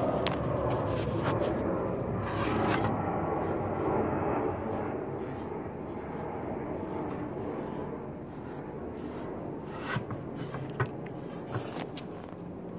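Foam sponge brush rubbing and scraping across a plywood board as thick acrylic paint is spread in strokes, with a few light taps near the end.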